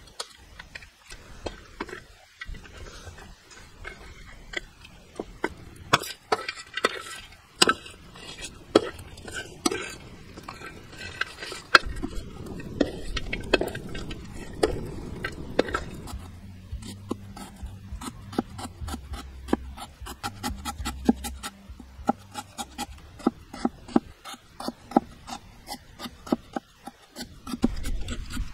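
A metal spatula scraping and clanking in a steel wok as meat is stir-fried over a wood fire. In the second half, a large knife chops quickly and steadily on a wooden stump block.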